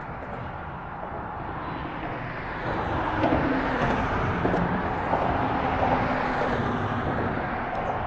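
Boat motor running as the boat moves across the water, its sound rising a little under a third of the way in.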